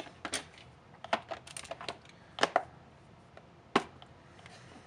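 Sharp irregular clicks and snaps of hard plastic as a small screwdriver pries at the clips holding a moulded toy-boat hull together, with the loudest snap about three-quarters of the way through.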